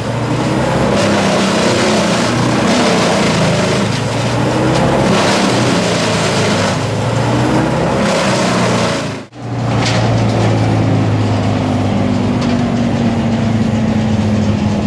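Wood chipper running hard as a tree is fed through: a steady engine drone under loud grinding, shredding noise. It breaks off for a moment about nine seconds in, then carries on.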